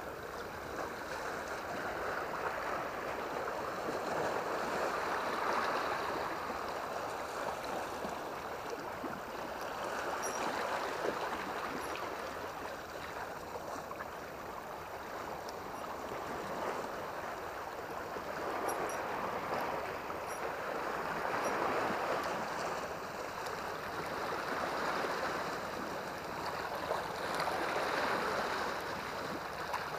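Sea water washing and lapping against the rocks of the shore, swelling and easing every few seconds.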